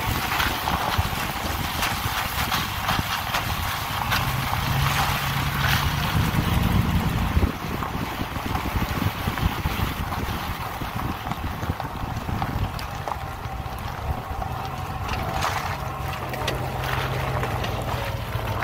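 Chevrolet Silverado pickup driving on a wet dirt and gravel trail: tyres crackling and splashing over the wet ground, with the truck's engine humming underneath and wind buffeting a microphone held outside the window. The engine note rises and strengthens about six seconds in.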